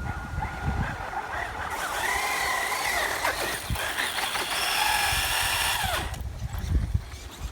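Electric RC buggy (FTX Viper) motor and drivetrain whining at speed, the pitch wavering with the throttle from about two seconds in, then winding down near the end.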